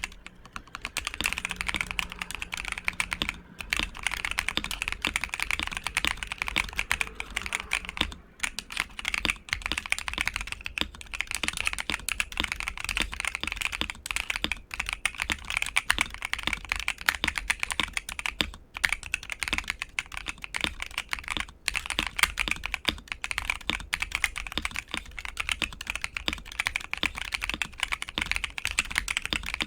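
Fast, continuous typing on an ASUS ROG Azoth mechanical keyboard with ROG NX Red linear switches on a polycarbonate plate, dampened with layers of foam and PET film, broken by a few short pauses.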